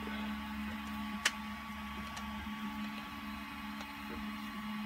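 3D-printed plastic wheel parts being handled and fitted together: one sharp click about a second in and a few faint ticks, over a steady low hum.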